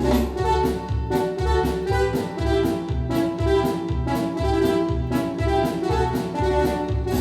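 Music: a Yamaha DX7 FM synthesizer patch playing sustained notes over a steady beat, with a low pulse and drum-like hits about twice a second.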